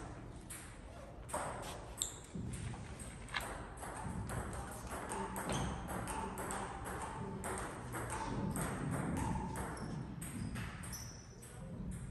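Table tennis ball being struck back and forth by rubber paddles and bouncing on the table in a rally: a quick, irregular run of sharp clicks, a few a second.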